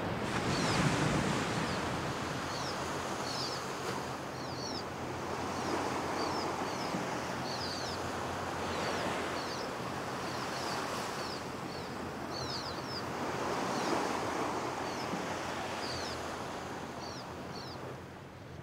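Sea waves breaking and washing onto a sandy beach, swelling every few seconds. Small birds give short high chirps, two or three at a time, throughout.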